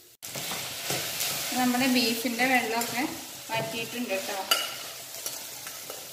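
A metal spoon scraping and stirring cooked beef out of a stainless steel pressure cooker pot, giving squeaky scraping tones over a sizzle of frying. A sharp metal clink comes about four and a half seconds in.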